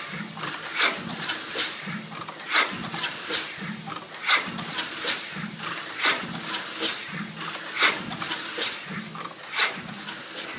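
Ingersoll Rand steam-driven air compressor running at a slow, steady pace. A low beat comes about every 0.8 s, with sharp clicks and hissing puffs on each stroke. Its big-end oil hole is freshly cleared of foreign matter.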